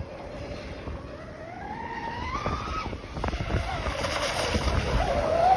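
Radio-controlled twin-hull catamaran boat running at speed, its motor whine rising in pitch over the first three seconds, then wavering and growing louder as the boat nears, with a hiss of spray. Wind rumbles on the microphone underneath.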